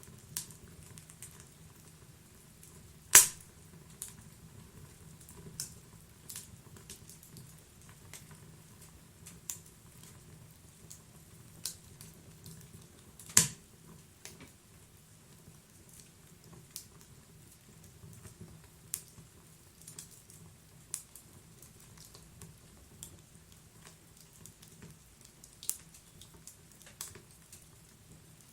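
Wood fire burning inside a stove: a low steady rumble of the flames with irregular crackles and pops from the burning wood, two sharp loud pops standing out about three seconds in and again about thirteen seconds in.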